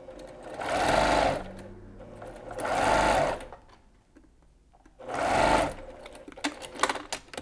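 Domestic electric sewing machine sewing a long straight basting stitch through fabric in three short runs of about a second each, stopping between them, followed by a few light clicks.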